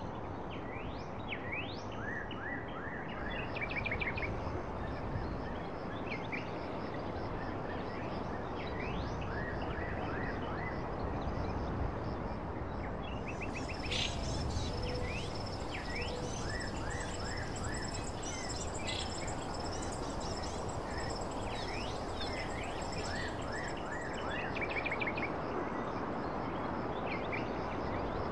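Outdoor ambience of small birds chirping in short repeated calls over a steady background hiss. A high, steady trill joins in from about halfway through and stops a few seconds before the end.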